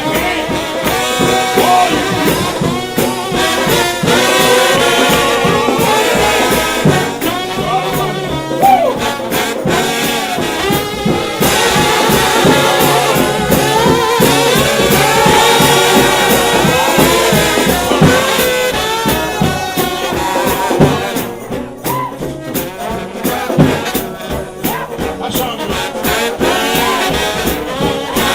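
A trombone shout band plays brass gospel music, with many trombones sounding together over a pulsing beat. It eases off somewhat about three-quarters of the way through.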